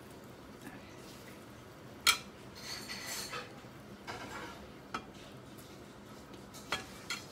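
Cutlery and dishes clinking on a plate at a meal: one sharp knock about two seconds in, then a little scraping and a few lighter clicks.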